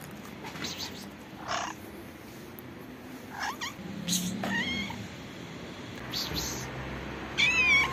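Hungry stray domestic cats meowing to be fed: several short meows spread over the seconds, the loudest and longest near the end.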